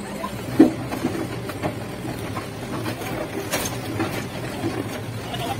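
Caterpillar mini excavator's diesel engine running steadily, with scattered short knocks over it; the loudest knock comes about half a second in.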